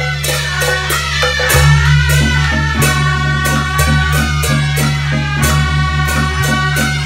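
Taiwanese Beiguan ensemble playing in a seated performance: several suona shawms play the melody in unison over a drum and percussion keeping a steady beat, about two strokes a second.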